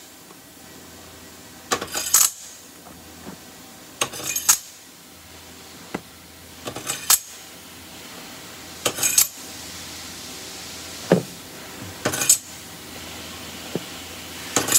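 Rough metal parts stacked one at a time onto a machine's loading rods, each landing on the pile with a metallic clink and rattle about every two seconds. A steady machine hum runs underneath.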